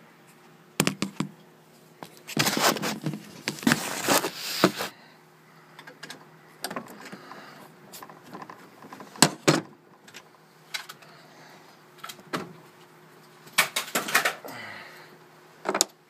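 Hand tools and refrigerant hose fittings being handled: irregular metal clinks, clicks and rustles, with a longer, louder stretch of rustling about two to five seconds in. A faint steady hum runs underneath.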